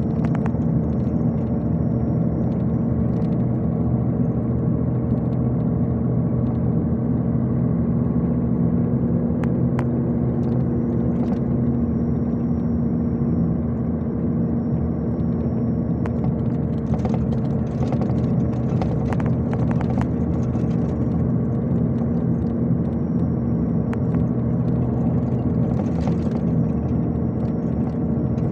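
Cabin noise inside a MAZ-251 intercity coach cruising at steady speed: a steady diesel engine drone under road noise, with occasional light clicks.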